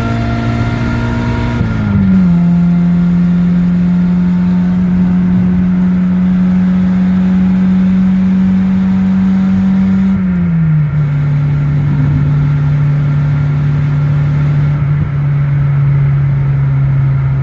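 A motor running loudly at a steady pitch, dropping to a lower pitch about two seconds in and again about ten seconds in.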